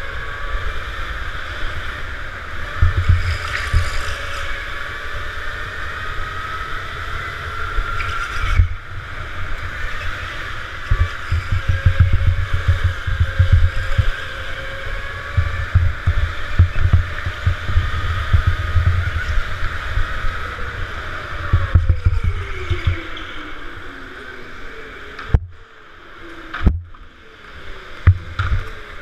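Electric go-kart driven at speed, its motor whine rising and falling with speed, over a heavy rumble of vibration and wind on the onboard camera. Near the end the whine slides down as the kart slows, and a few sharp knocks follow.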